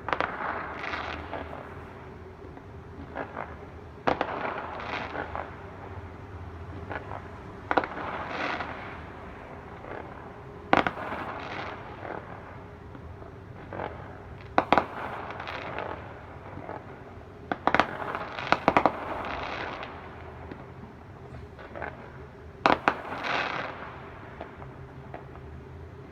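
Fireworks display: aerial shells bursting with sharp bangs every three to four seconds, each bang followed by about a second of crackling.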